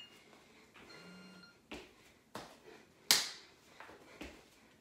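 Hands and feet slapping and landing on a foam exercise mat laid over a tiled floor during an up-and-down (stand-to-plank) exercise: a series of short, sharp slaps, the loudest about three seconds in.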